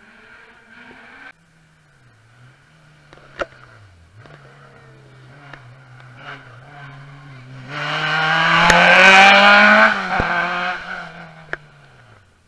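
Rally car engine accelerating hard as it approaches and passes, its pitch climbing through the run-up, loudest about eight to ten seconds in, then fading as it drives away.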